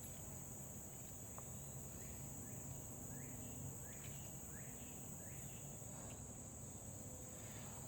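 Steady high-pitched insect trill, typical of crickets, running continuously under a faint low hum. A run of faint, short rising chirps comes in the middle.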